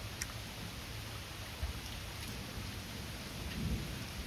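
Steady rain falling, with a low rumble of thunder that swells near the end.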